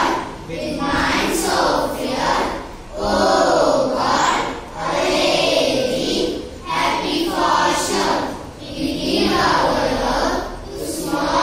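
A class of children chanting a prayer together in unison, in phrases of a second or two with short pauses for breath between them.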